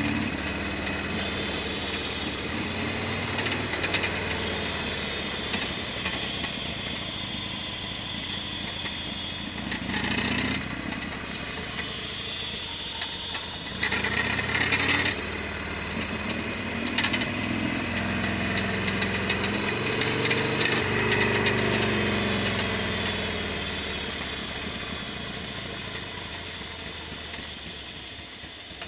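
Harley-Davidson Sportster XL1200's air-cooled V-twin engine running on the move, its pitch rising and falling several times as it is revved and eased off, then getting steadily quieter over the last several seconds.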